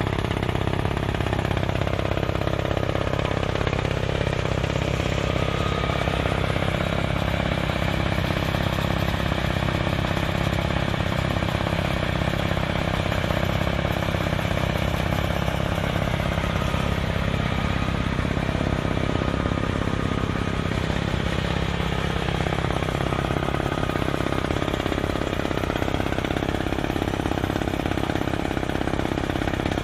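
Kaishan drilling rig running with a steady mechanical drone. Its pitch shifts a little about two-thirds of the way in.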